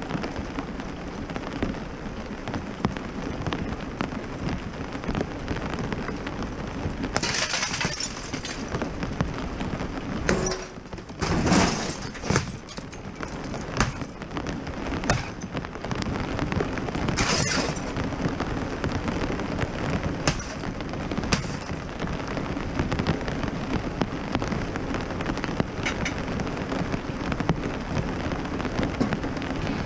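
Steady rain falling, with scattered knocks and clatter; the loudest, a heavy thump, comes about eleven seconds in.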